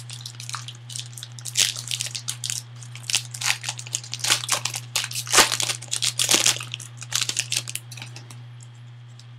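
Foil wrapper of a 2013 Topps Museum Collection card pack being torn open and crumpled: a dense, crackling crinkle that dies away about eight seconds in. A steady low hum runs underneath.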